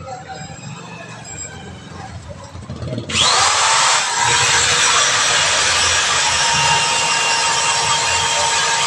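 Corded electric drill switched on about three seconds in, with a brief rising whine as it spins up, then running steadily at full speed while held against the rubber inner tube.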